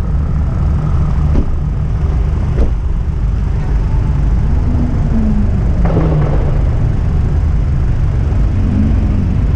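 A car running close by with a steady heavy low rumble, broken by a few short sharp cracks near the start and one about six seconds in.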